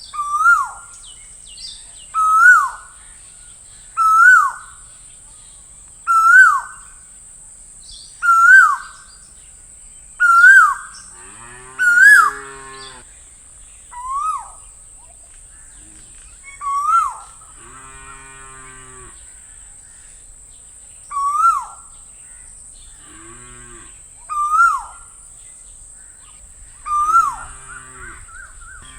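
Male Asian koel calling its repeated "ko-el", a loud rising whistled note about every two seconds, about twelve times. Four times in between comes a lower, buzzy, drawn-out call, over a steady high-pitched hiss.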